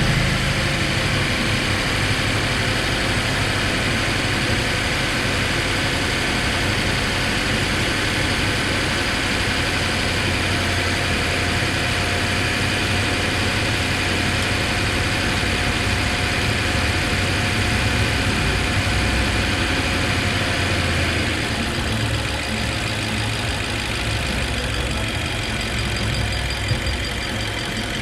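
2015 BMW 750Li's 4.4-litre twin-turbo V8 (N63) idling steadily, easing slightly quieter about two-thirds of the way through.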